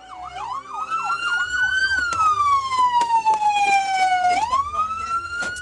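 Police car siren, a quick up-and-down yelp for about two seconds, then a slow wail falling in pitch and rising again about four seconds in. A low vehicle rumble runs beneath it.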